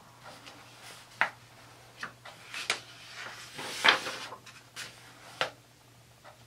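Paper pages of a coloring book rustling as they are handled and a page is turned. There are several short, crisp rustles, and the loudest, longest one comes about three and a half seconds in.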